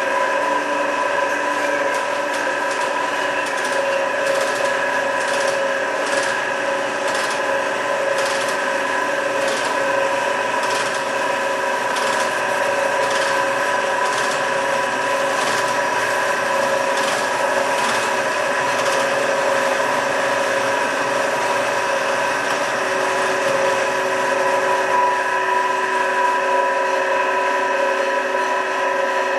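Amada HA250W horizontal band saw running, its blade and drive giving a steady whine made of several tones, with a regular ticking through the first two-thirds. The blade cover is off, so more of the mechanism's noise comes through.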